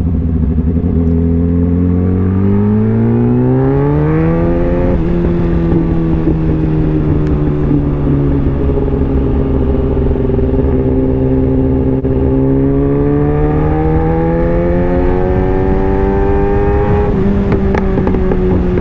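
Kawasaki ZX-10R inline-four engine under way, pulling up in pitch for about five seconds, shifting up, running steady, then climbing again and shifting near the end, with wind rushing over the rider's microphone.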